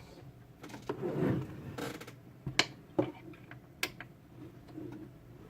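Handling noise from work on a car headlight: three or four sharp clicks and knocks with a brief scrape and soft rustling in between.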